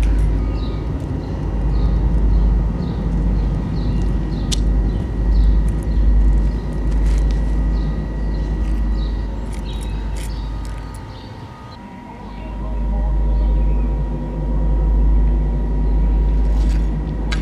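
Outdoor ambience: a heavy low rumble that dips briefly about twelve seconds in, with a small bird chirping repeatedly through the first half.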